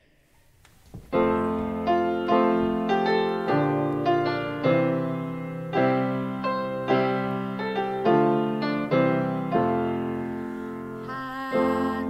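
Piano playing the introduction to a hymn anthem, chords struck one after another and left to ring. About a second before the end, a woman's voice comes in, singing the first line in Korean.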